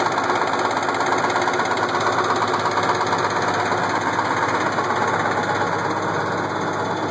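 Case IH 1680 combine's 8.3-litre Cummins diesel engine running steadily with a fast, regular knock. The knock comes from a cracked cam gear with missing teeth.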